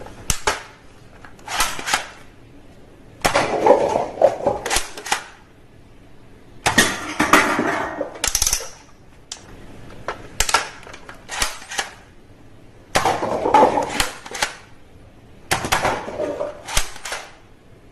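Toy guns firing in about seven short bursts of rapid clicking shots, separated by brief pauses.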